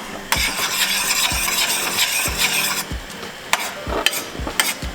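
White wine, lemon and butter pan sauce simmering and sizzling in a pan for a couple of seconds, then a few sharp clicks of a utensil against the pan.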